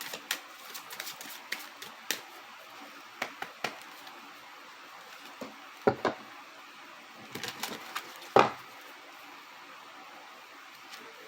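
Tarot or astrology cards being handled: shuffled, drawn and laid down on a table. The handling makes soft irregular clicks and taps, with a few sharper snaps or slaps about six and eight seconds in.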